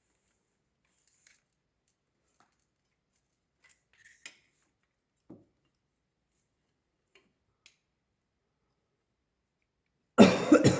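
A few faint, scattered clicks and taps of small metal parts being handled, then a loud cough about ten seconds in.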